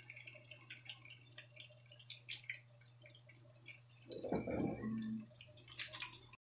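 Shrimp-paste and cabbage omelette patties shallow-frying in a nonstick pan: the hot oil pops and spits softly in scattered small pops, over a low steady hum. About four seconds in there is a brief louder rustle, and the sound cuts off suddenly just before the end.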